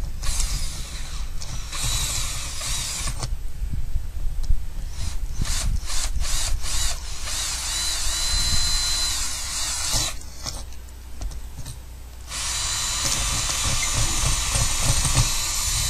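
Electric drill running in several bursts, its bit boring a cable hole through the house wall, with a few clicks in the gaps between runs. The longest runs come around the middle and again from about twelve seconds in.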